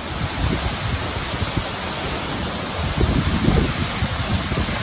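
Steady rush of a large waterfall heard close to its base, with a few low rumbles about three seconds in.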